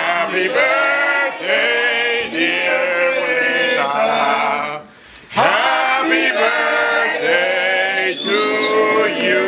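A group of people singing a birthday song together without accompaniment, holding long notes, with a short break about five seconds in.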